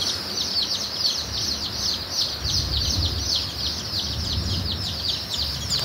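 A brooder full of baby chicks peeping continuously: a dense chorus of many overlapping short, high peeps, each sliding downward in pitch, several a second.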